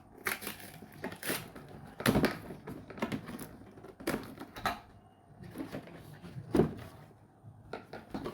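Box and packaging being handled during unboxing: irregular knocks, scrapes and rustles, loudest about two seconds in and again just past six seconds.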